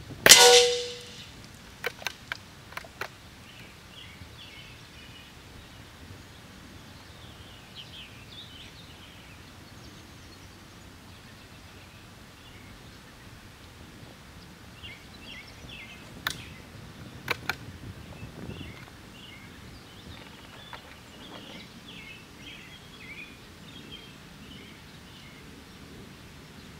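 A single .22LR rifle shot with a short ringing tail, then a few sharp metallic clicks about two to three seconds in as the rifle's action is worked. More clicks come about sixteen to eighteen seconds in, with birds chirping in the background.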